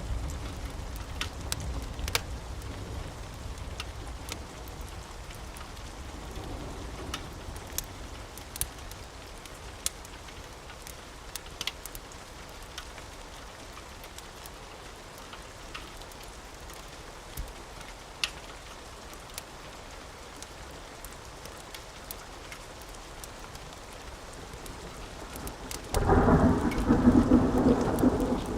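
Steady rain with scattered sharp crackling ticks from a fireplace and a low rumble in the first few seconds. Near the end, thunder breaks in suddenly and loud.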